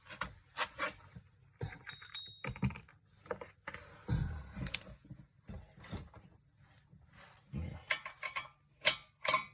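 Metal hand tools clinking and rattling in short, scattered bursts as they are rummaged through in search of the right size.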